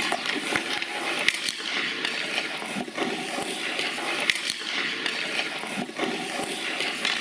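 Hockey skates scraping and carving across rink ice, with sharp clacks of sticks on pucks, the loudest about a second in and again about four seconds in.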